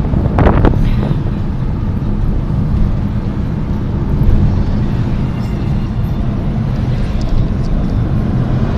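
Steady low rumble of a car's engine and tyres heard inside the cabin while driving.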